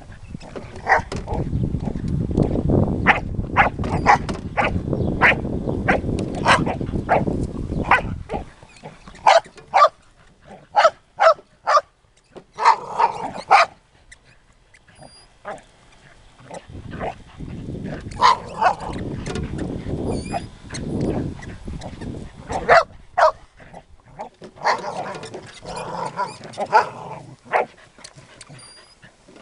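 Two Australian cattle dogs (heelers) barking repeatedly in sharp single barks at a lawn mower. Long stretches of low growling run under the barks for most of the first eight seconds and again a little past the middle.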